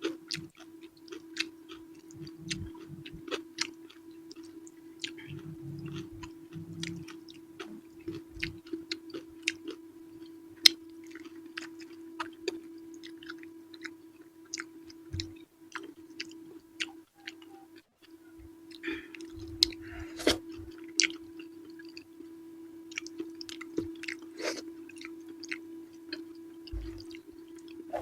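Close-miked chewing and mouth sounds of someone eating purple eggplant with sambal: many short wet clicks and smacks. Under it runs a steady low hum that drops out briefly a little past the middle.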